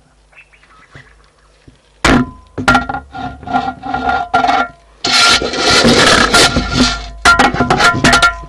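Elephant handling a microphone, its trunk rubbing and scraping against it: loud scraping handling noise in short repeated strokes starting about two seconds in, a longer continuous scrape in the middle, then a few more quick strokes near the end.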